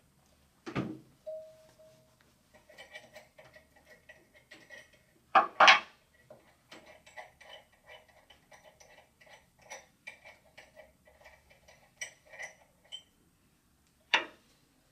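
Small metallic clicking and ticking as the mechanical seal gland nuts are worked loose and taken off their studs on a Goulds 3196 pump. There is a thump about a second in, two sharp metal knocks about halfway, and another knock near the end.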